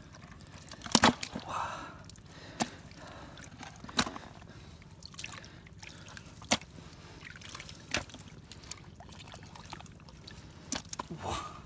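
Live catfish and climbing perch thrashing in a plastic bucket with a little muddy water. Scattered sharp wet slaps and knocks come every second or few, over a faint trickle and slosh of water.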